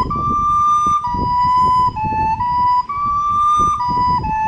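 Soprano recorder playing a slow, smoothly tongued legato phrase. It moves among three notes, B, D and A, in a pentatonic melody: D, B, A, B, D, B, A. Each note is held with short breaks between them.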